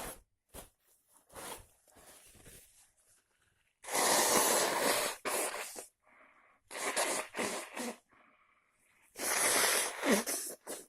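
A person with a heavy cold sneezing loudly in three bouts, starting about four seconds in, with quieter sniffs and breaths before and between them.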